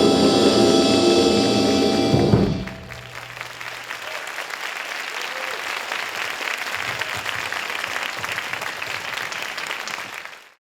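Dance music stops on a final hit a couple of seconds in, then a crowd applauds, quieter than the music, until the sound cuts off.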